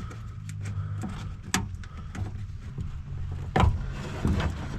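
Small plastic clicks and knocks as the wiring-harness connector is worked off a power door-lock motor inside a car door, with two sharper clicks about a second and a half in and just past halfway. A low steady hum runs under them.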